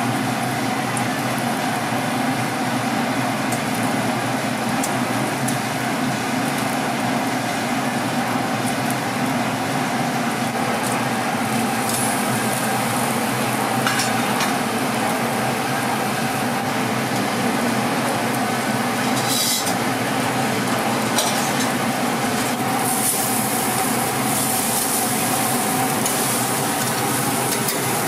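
A thick slab of seasoned pork belly sizzling steadily on a wire grill over an open fire, with a few light clicks. The sizzle grows brighter near the end as the fat flares up.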